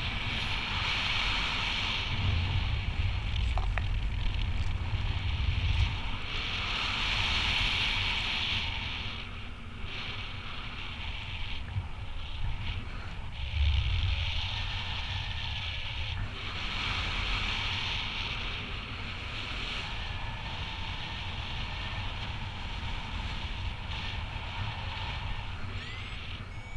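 Wind rushing over the camera microphone in flight under a paraglider: a low rumble under a hiss that swells and eases every few seconds.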